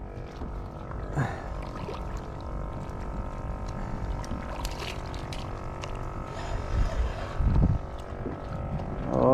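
Electric trolling motor on a kayak running with a steady whine over a low rumble of water and wind, with a louder low swell about seven to eight seconds in.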